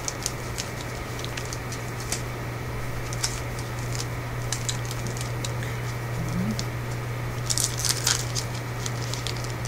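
Light, scattered crinkles and clicks of a trading-card pack wrapper and cards being handled, busiest about eight seconds in, over a steady low hum.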